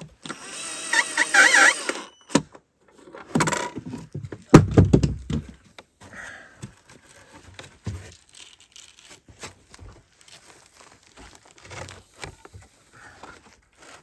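Cordless drill whirring as it drives a screw into the wooden door frame near the start, then a heavy wooden thump about four and a half seconds in as the plank door is handled, followed by faint clicks and scrapes of the door being fitted.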